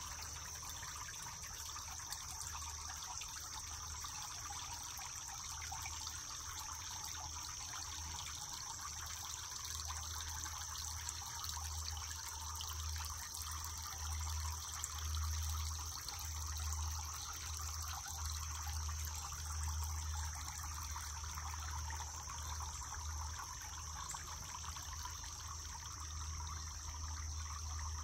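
Water trickling steadily from a tiered garden fountain, with a steady high insect drone and a low rumble underneath.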